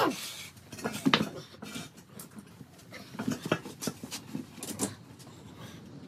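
Scattered light clinks and knocks of hand tools and metal parts being handled during a tire change, with a louder sudden sound right at the start.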